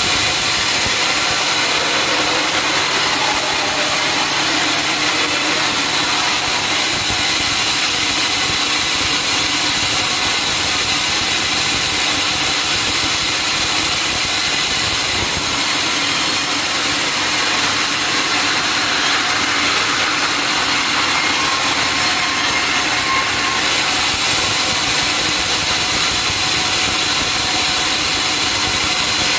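Sawmill saw and its drive running steadily without a break, the even noise of a machine saw at work on timber.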